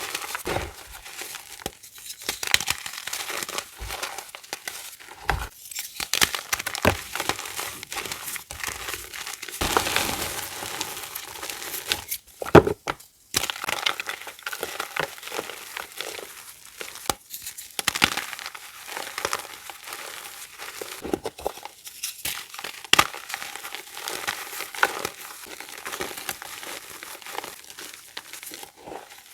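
Reformed gym chalk being crushed, a dense, irregular run of crisp crunches and crumbly crackles with a few short pauses.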